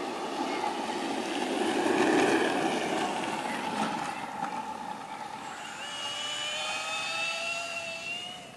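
Electric motor whine from a cordless drill driving a homemade electric longboard, over the rumble of its wheels rolling on asphalt. In the second half the whine climbs slowly and steadily in pitch.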